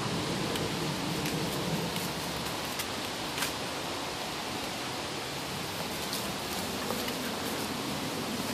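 Steady outdoor background hiss, with a few faint ticks scattered through it.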